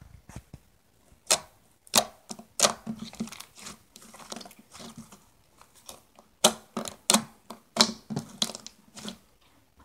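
Fingers poking and pressing into a lump of slime, making irregular sharp clicks and pops. The loudest come about a second and a half in and again between six and a half and eight seconds.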